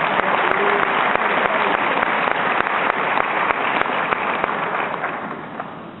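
Audience applause: a dense, even patter of many hands clapping in a large hall, tapering off near the end.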